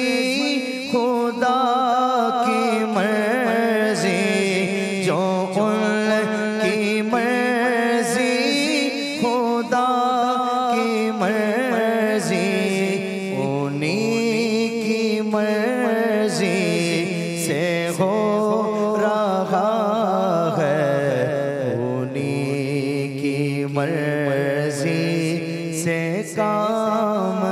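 A male voice singing an Urdu naat, a devotional poem in praise of the Prophet, in long, drawn-out, wavering phrases.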